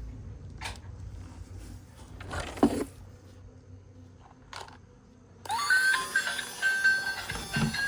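A few light clicks and one louder knock with a short rattle. About two-thirds of the way in, background music with a bright melody comes in.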